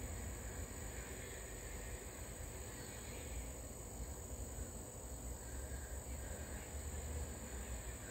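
Steady, high-pitched chorus of insects such as crickets, with a low rumble underneath.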